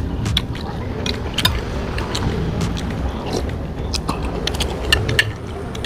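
Close-miked eating of chicken noodles: chewing and slurping, with many short sharp clicks and smacks scattered throughout.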